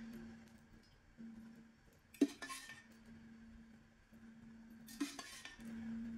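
A metal ladle clinks against steel pots twice, about two seconds in and again near the end, each clink followed by a short hiss as thin batter is poured onto the hot iron tawa.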